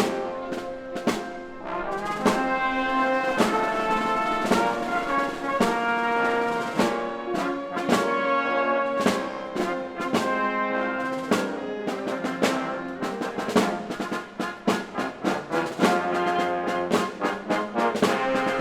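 Symphony orchestra playing a brass-led passage, trombones and trumpets prominent, over a steady beat of sharp strokes that come faster in the second half.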